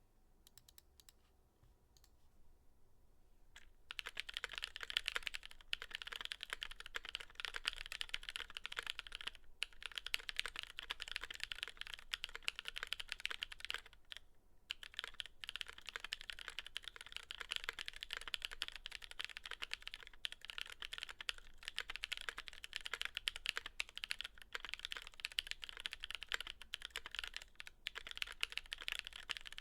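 Typing on a Velvet Pro mechanical keyboard with long-pole tactile switches (Razer Orange stems in Cherry housings), an aluminium full plate, a double O-ring mount and GMK keycaps. A few faint taps give way, about four seconds in, to fast continuous key clicks with a couple of brief pauses.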